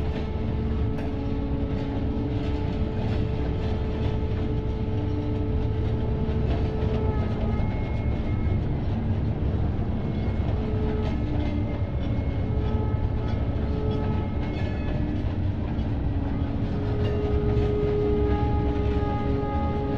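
Experimental electronic sound: a dense, steady low rumble with crackle, under held electronic tones. One tone holds for about the first seven seconds, then shorter tones at shifting pitches come and go every second or two.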